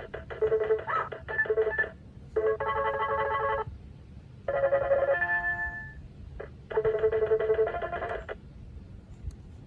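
Circuit-bent Protech toy keyboard sounding glitched electronic tones through its built-in speaker: four separate bursts of stacked, beeping notes, each a second or two long, the first one stuttering. It falls quiet near the end.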